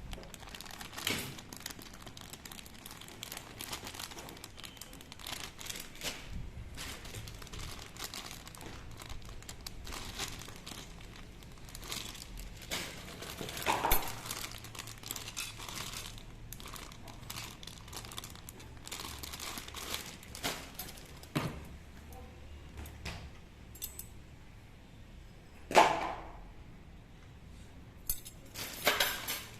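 Plastic packaging crinkling and rustling while small hard parts click and clink as they are handled, with a few sharper knocks.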